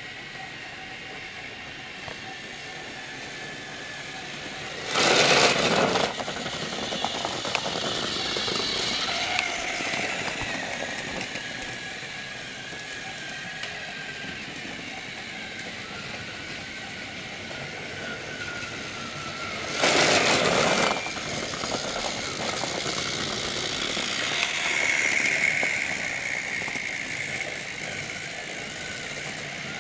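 Battery-powered TrackMaster motorized toy train running on plastic track, its small electric motor whining, the pitch drifting slowly down. Two loud bursts of noise, each about a second long, cut in about five seconds in and again about twenty seconds in.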